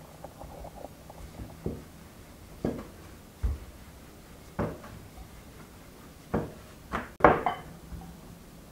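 Wooden rolling pin knocking and rolling on a wooden board as dough is rolled out: about seven separate knocks, spaced about a second apart, the loudest about seven seconds in.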